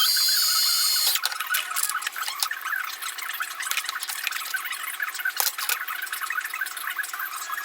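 A power drill runs for about a second at the start, drilling a hole in the instrument panel, followed by scattered light clicks and taps of hand work on the panel.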